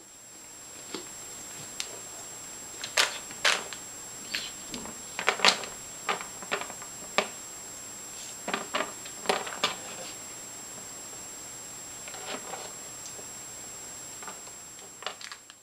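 A cat batting at a SatinBouncer wand toy over a cardboard box: scattered light taps, clicks and rustles as paws and toy strike the cardboard and floor, coming in irregular clusters. Underneath runs a steady hiss with a thin high whine.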